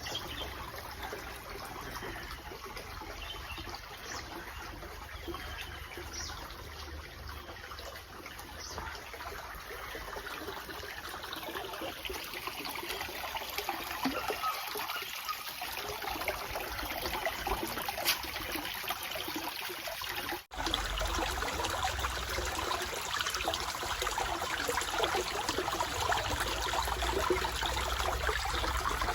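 Running water trickling and splashing steadily. After a sudden break about two-thirds of the way in, the sound is louder and fuller, with more low rumble.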